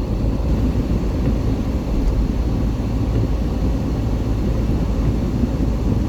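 Steady low rumble of a car driving along: engine and tyre noise.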